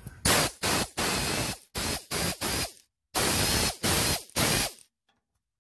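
Air tool driving a socket on a long extension onto a bolt near the flex plate, triggered in about nine short bursts of loud hiss with brief gaps between them. It stops about a second before the end.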